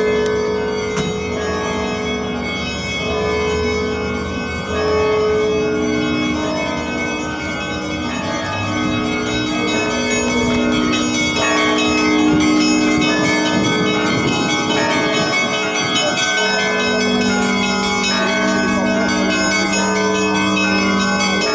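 Orthodox church bells ringing in a full peal: many bells sounding together, their tones overlapping and hanging on, with the mix of notes shifting every few seconds.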